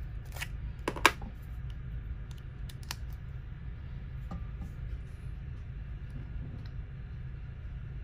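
Sharp plastic clicks and taps from handling a GoPro Hero 8 Black camera, its buttons, side door and charging cable plug, a handful in the first few seconds with the loudest about a second in, over a steady low hum.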